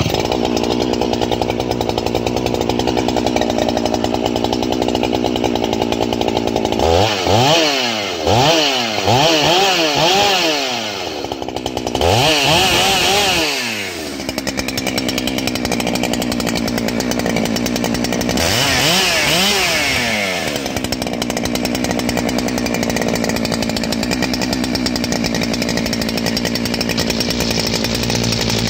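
Husqvarna 395XP 94 cc two-stroke chainsaw, ported and with a muffler mod, starting at once and idling. A few seconds in it is revved in four quick throttle blips, then two longer revs, dropping back to idle between.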